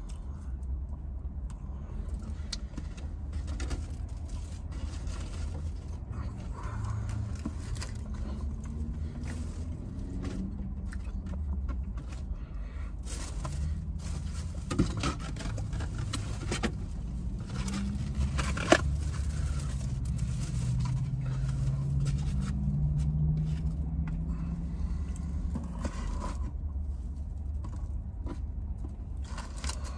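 Takeout food and its paper packaging being handled and set out on a tray inside a car: scrapes and rustles, with two sharp clicks about halfway through, over a steady low rumble.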